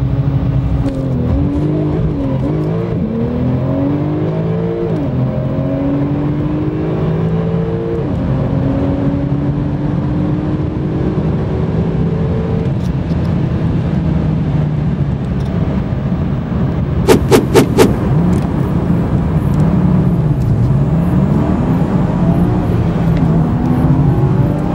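2015 Porsche 911 Turbo's 3.8-litre twin-turbocharged flat-six, heard from inside the cabin, held at steady revs under launch control, then launching and accelerating hard. The engine note climbs and drops back at each quick dual-clutch upshift, five times through to 200 km/h, then runs on at high speed. About 17 seconds in come four loud sharp clicks in quick succession, after which the revs fall and rise again.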